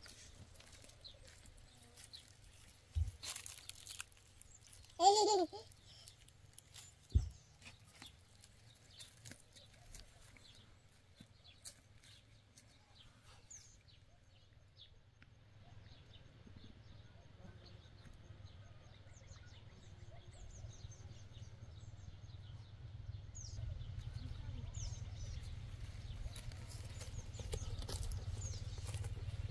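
Quiet rural outdoor ambience: faint bird chirps over a low rumble that grows louder through the second half. There is one short cry about five seconds in and two sharp knocks, one just before and one just after it.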